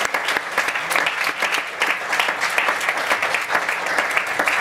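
Audience applauding: many hands clapping in a dense, steady wash.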